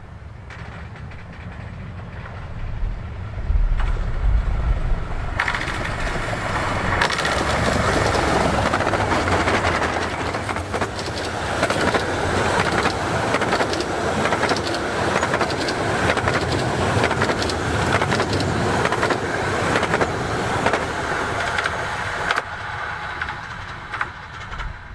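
A one-third-scale, 15-inch gauge steam locomotive and its train of carriages passing at speed. The sound builds up a few seconds in, holds with a fast clatter of wheels over the rails, and fades away near the end.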